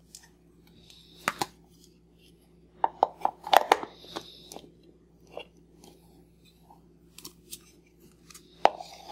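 Hard plastic parts of a Play-Doh toy set clicking and knocking as they are handled and fitted together, the blue extruder tube pushed into the grey base. The clicks come scattered, with a cluster a few seconds in.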